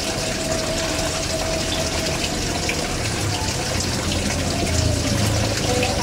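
Steady rushing noise, like running water, with a thin steady tone above it that sinks slightly in pitch near the end.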